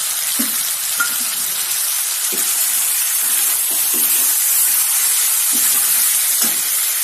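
Chicken and onion-tomato masala frying in oil in a steel kadai, a loud, steady sizzle. It is stirred with a perforated steel ladle, whose strokes scrape the pan about every second or two.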